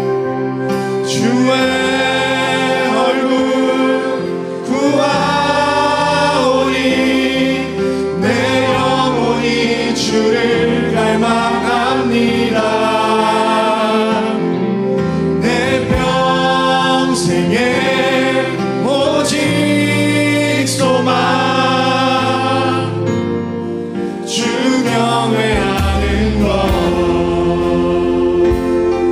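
Live worship band and singers performing a Korean praise song: a male lead singer on acoustic guitar with a group of male and female vocalists singing together over keyboards, bass guitar and drums.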